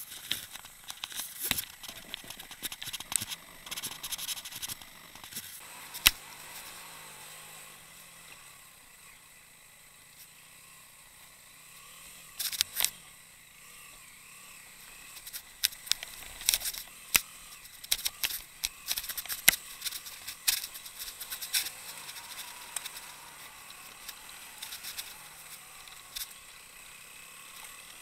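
Sharp clicking and rattling from a motorcycle-mounted camera and its mount being jolted over a rough track, in bursts during the first few seconds and again in the middle, with the motorcycle's engine faint underneath.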